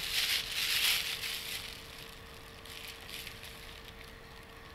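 Thin polythene bag crinkling as it is unfolded and laid on a digital scale's pan, loudest in the first second and a half, then fading to faint scattered rustles. A faint steady hum runs underneath.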